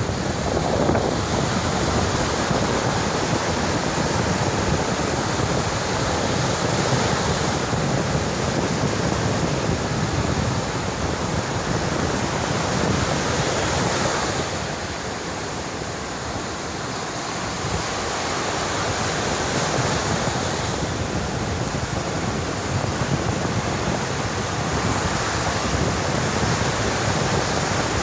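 Heavy sea surf crashing and rushing on the shore, with strong wind buffeting the microphone. It is a continuous, dense roar that eases slightly about halfway through.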